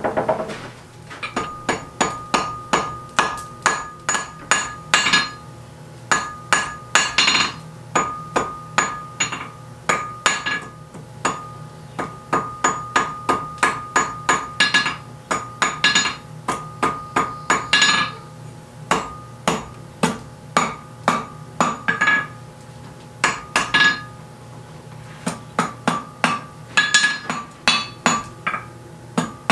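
Blacksmith's hand hammer striking a glowing iron rod on an anvil, about three blows a second in runs broken by short pauses. The anvil rings with a steady tone between blows.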